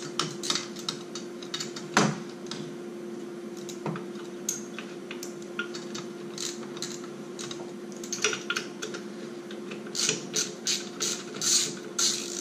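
Ratchet wrench clicking in short runs, with metal tools clinking, as the 12 mm bolt on the alternator is worked to slacken the accessory belt. The clicks come thicker in the last few seconds.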